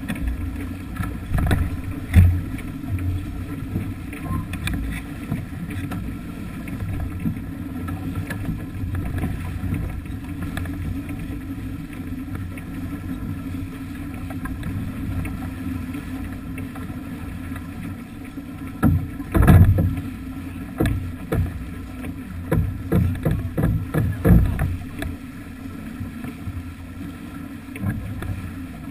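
Sailing yacht heeled under sail through choppy water: a steady low rumble of wind on the microphone and water rushing along the hull, with sharp thumps about two seconds in and a run of them from about 19 to 25 seconds in.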